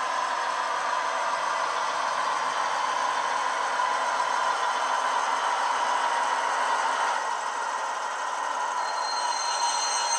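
Digitrains sound file of a Class 58 diesel, its Ruston V12 engine running steadily under power, played through the small speaker of a Heljan OO-gauge model locomotive fitted with a LokSound 5 decoder as it moves along. A thin high whine joins near the end.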